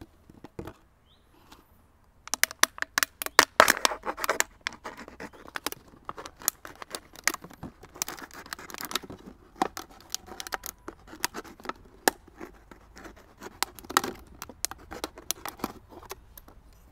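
Thin plastic water bottle being cut around its top with a blade, to separate the top as a funnel. After a quiet start, a dense string of irregular crackles, clicks and scrapes comes as the blade works through the plastic.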